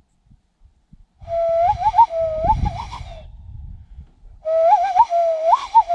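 Two whistled phrases of about two seconds each. Each holds a low note and breaks into quick swoops up and down in pitch.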